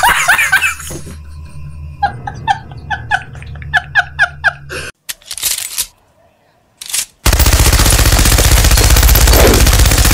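A man laughing loudly, then, about seven seconds in, a machine gun fires in one sustained burst of rapid continuous shots.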